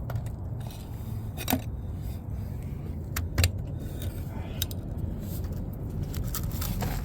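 A few sharp metallic clicks and clinks, like tools or hardware being handled, over a steady low hum like an idling engine.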